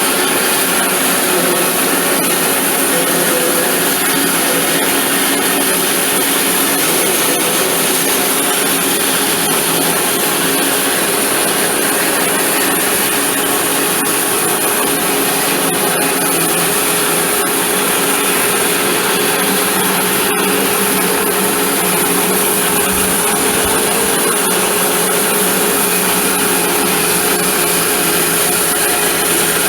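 Electric power saw running steadily and cutting through a wooden board, a continuous hum and rasp with no pauses.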